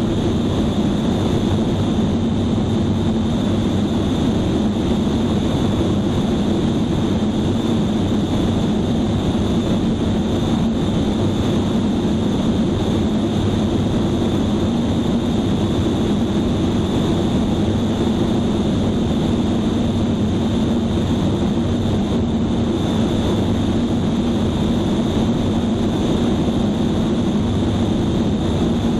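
Small propeller airplane's engine running steadily in cruise, an even, unchanging drone mixed with wind noise.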